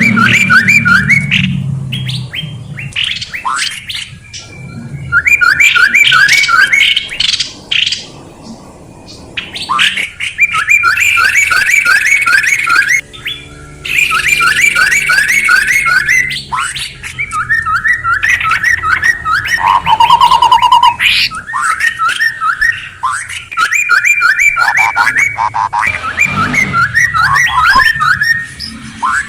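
Recorded songbird calls played as a bird lure: loud, fast runs of short, repeated, down-slurred chirping notes in phrases of a second or two, broken by brief pauses, with some harsher squawk-like notes.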